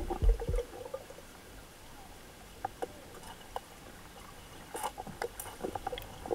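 Faint underwater pool ambience: low hiss with sparse small clicks and pops, and a few soft thumps in the first half-second.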